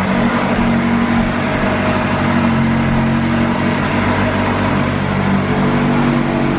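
McLaren 570's twin-turbo V8 idling steadily, its note shifting slightly about two and a half seconds in.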